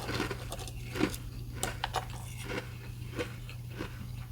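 Someone chewing restaurant ice: a run of irregular sharp crunches, some louder than others, over a steady low hum.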